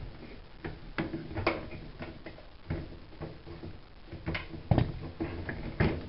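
Irregular clicks and knocks of plastic and metal as a washing machine's drain hose and its hose clip are worked off the drain pump with a hand tool. The two loudest knocks come near the end.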